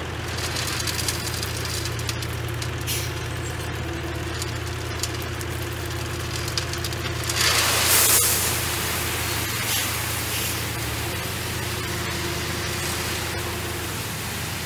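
Heavy construction machine's engine running steadily, with a loud hissing rush about halfway through that lasts around a second.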